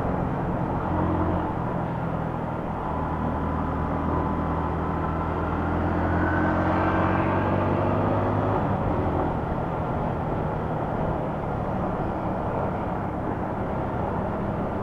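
Motorcycle engine running steadily while riding at road speed, heard from the rider's position with road and wind noise; the engine note shifts about nine seconds in.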